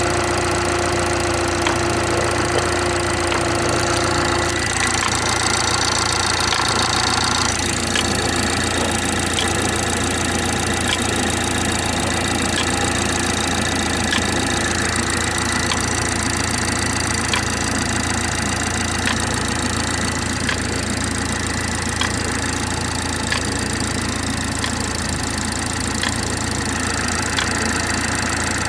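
BMW 430i xDrive's B46/B48 turbo four-cylinder idling on a cold start, with a sharp tick about every one and a half seconds; the weird noise the owner hears on cold starts in cold weather. A steady whine drops away about four seconds in, and the higher part of the sound changes again near eight seconds.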